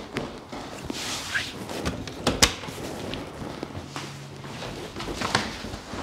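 Chiropractic adjustment on the upper back: one loud, sharp crack about two and a half seconds in, among softer knocks and shuffling.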